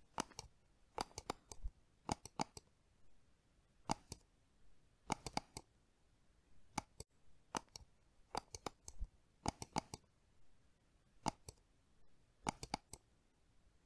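A series of sharp clicks in small clusters of two to four, about one cluster a second, with quiet in between.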